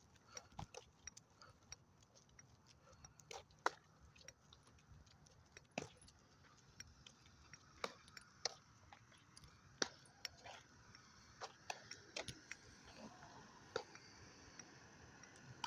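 Faint, irregular light clicks and ticks, about one a second, with two sharper ones about four and ten seconds in, over a quiet background.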